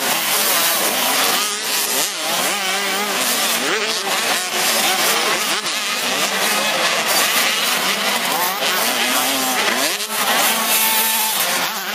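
Several 85 cc two-stroke motocross bikes racing, their engine notes overlapping and rising and falling in pitch as the riders work the throttle.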